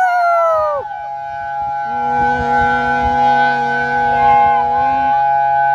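Outdoor tornado warning sirens sounding a test, several steady tones held together. One siren's pitch slides down and stops about a second in, and a lower steady tone sounds from about two seconds in to about five.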